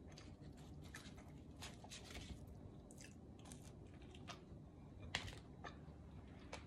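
Faint chewing of pizza close to the microphone, soft wet mouth clicks now and then, one a little louder about five seconds in.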